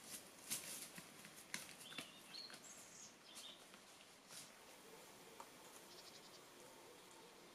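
Near silence: faint outdoor ambience with a few short high chirps, like small birds, and scattered light clicks.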